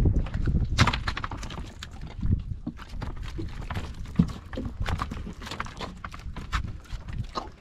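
Freshly caught trevally flapping in a red plastic basket: irregular quick taps and knocks against the plastic.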